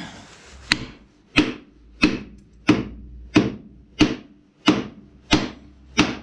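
Hammer blows on a wooden block held against a David Brown 996 tractor's brake anchor peg, driving the peg into the brake backplate. Nine steady, evenly spaced strikes, about one and a half a second, starting under a second in.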